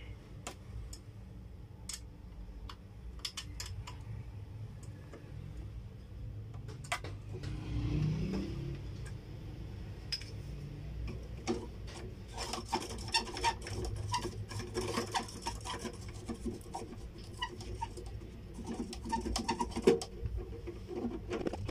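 Scattered clicks, taps and light knocks of metal and plastic parts being handled and screwed together as a height-measuring rod is fitted to a weighing scale's column. The clicking is sparse at first and grows dense over the second half, with the sharpest knock near the end, over a low steady hum.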